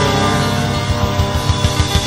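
A live rock band's closing flourish: a loud electric guitar chord held and ringing, with rapid, even drum hits coming in about a second in.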